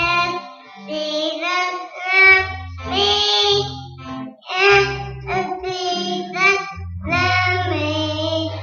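A group of boys singing a gospel song, their young voices in sung phrases over a guitar accompaniment with low sustained notes.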